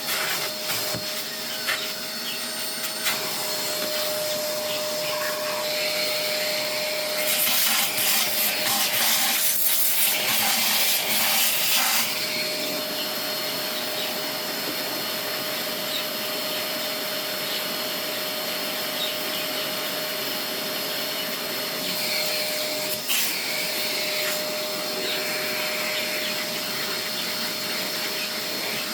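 Vacuum cleaner running steadily, with a constant motor whine; the rush of air grows louder for several seconds near the start and again briefly later, as it sucks up dust.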